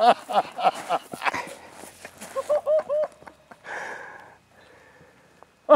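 A man laughing and whooping, ending in a run of about five short, quick laughs about two and a half seconds in, followed by a brief hiss.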